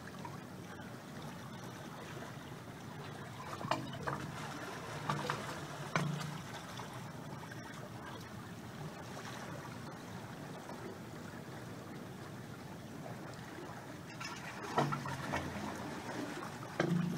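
Wave Organ pipe sounding as bay waves surge in and out of it: a steady low watery wash with hollow gurgles that swell louder a few times, around four and six seconds in and again near the end.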